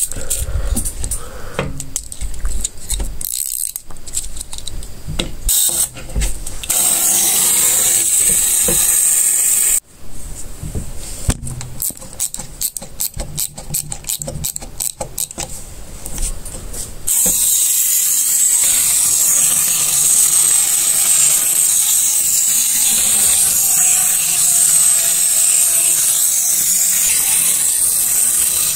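Small plastic capsule toy trains and track pieces handled, clicking and rattling against each other, then from about 17 seconds a wind-up toy locomotive's spring-driven gearing whirring steadily, with a briefer stretch of the same whirr about 7 seconds in.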